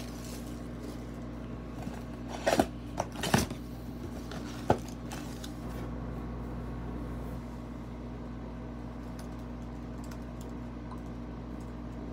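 Cellophane shrink wrap crinkling as it is pulled off a cardboard trading-card box, and the box being opened. There are a few short crackles and snaps about two and a half to three and a half seconds in, one more near five seconds, and a steady low hum underneath.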